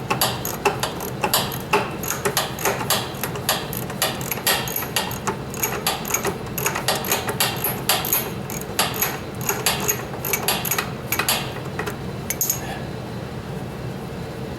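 Hand ratchet clicking in quick, repeated strokes as a bolt is backed out, stopping near the end.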